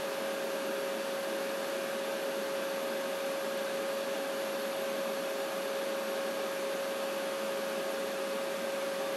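A machine running steadily: an even fan-like whir with one constant humming tone.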